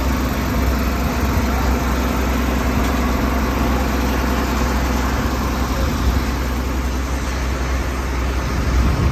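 Water well drilling rig's engine running steadily, a constant low hum with no change in speed.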